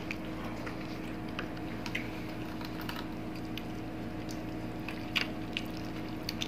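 Close-miked mouth sounds of eating: scattered short wet smacks and clicks of chewing and finger-licking while fried fish and rice are eaten by hand, with a few louder smacks about five seconds in. A steady low hum runs underneath.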